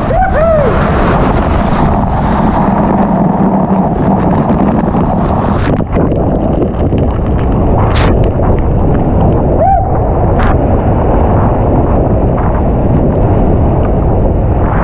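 Loud, steady rush of Empress Falls pouring after rain, with wind buffeting the microphone. Two short rising-and-falling calls cut through it, one right at the start and one about ten seconds in.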